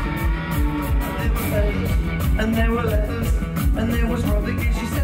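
Live rock band playing: drums keeping a steady beat under electric guitar and bass, with a voice singing over them.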